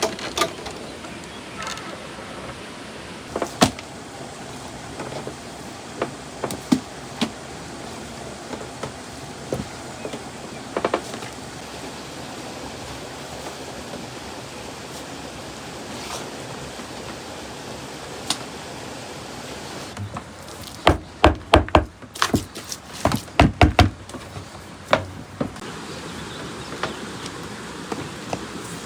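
Scattered knocks and taps over a steady hiss, with a quick run of loud, sharp knocks about two-thirds of the way through.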